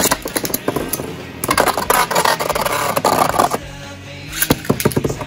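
Background music with metal Beyblade spinning tops, Rock Leone 145WB and Lightning L-Drago 100HF, clacking and scraping in a plastic stadium: sharp clicks throughout and a dense run of scraping from about one and a half to three and a half seconds in.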